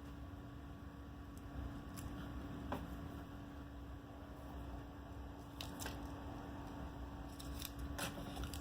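Handling noise: a few small, sharp clicks and light rustles, more of them in the second half, over a steady low electrical hum.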